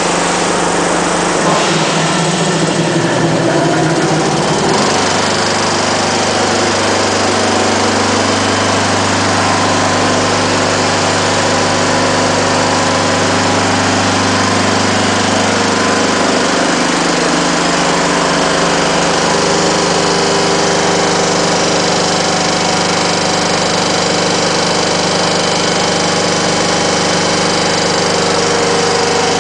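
Sauer & Sohn WP126 compressor running steadily, its sound changing in the first few seconds and then settling into an even mechanical drone.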